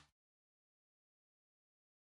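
Silence: the soundtrack is blank.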